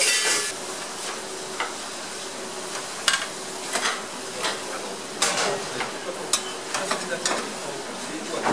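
Radish tops and onions sizzling in olive oil in a stainless saucepan, stirred with a wooden spatula that scrapes and knocks against the pan about once a second. A loud hiss in the first half second settles to a steadier sizzle.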